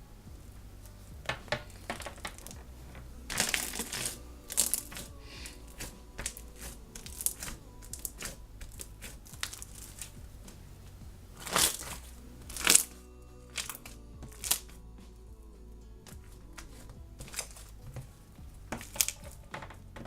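Slime being squeezed and pressed by hand, making irregular sticky pops, clicks and crackles, with a few louder crackling bursts, the loudest near the middle.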